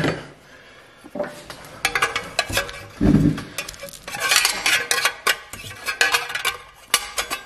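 Thin stainless steel sheet-metal parts clanking and scraping against each other as a perforated grate plate is worked down into the pellet oven's stainless fuel box, with a dull thump about three seconds in.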